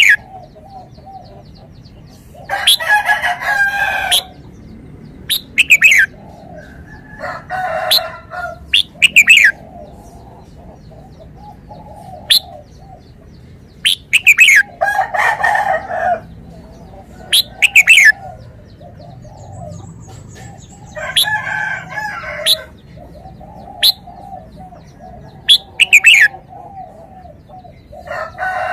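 Red-whiskered bulbul singing: short, loud whistled phrases repeated every two or three seconds, over a steady chatter of other birds.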